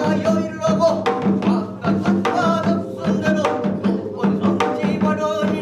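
Binari, a Korean ritual blessing song, sung by a solo voice in a gliding melodic line over a steady beat of traditional Korean drums, about three or four strokes a second.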